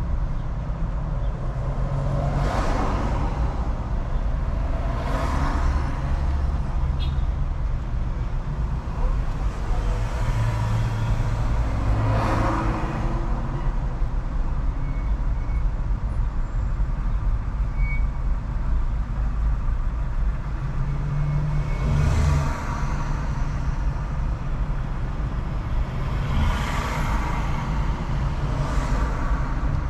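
City road and traffic noise from a moving Mercedes-Benz E-Class: a steady low rumble, with other vehicles rushing past about six times.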